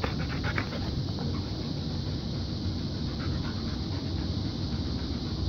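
Airedale terrier panting steadily with its mouth open, over steady room noise, with a few light ticks in the first second.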